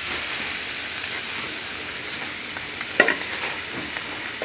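Chickpeas sizzling steadily as they fry in oil in a metal pan while a metal spoon stirs them, with one sharp clink about three seconds in.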